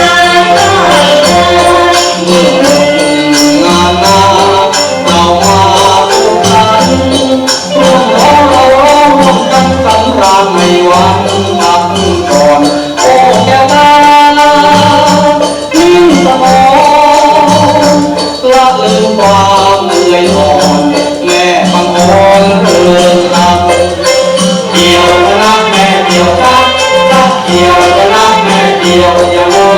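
Thai central-region harvest folk song: singing over a fast, steady beat of small hand percussion with a tambourine-like jingle.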